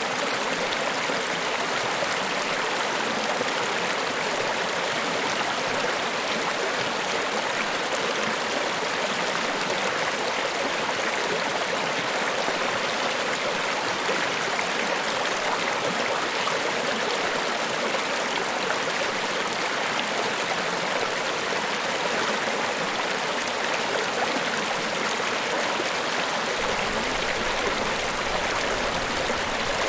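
Steady, unbroken rush of falling water at Niagara Falls. Near the end, a deeper rumble joins in underneath.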